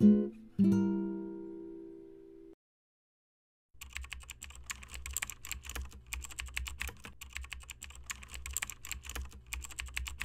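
Two acoustic guitar strums ring out and stop short about two and a half seconds in. After a brief silence, rapid keyboard typing clicks run on over a low steady hum as the title text types itself out.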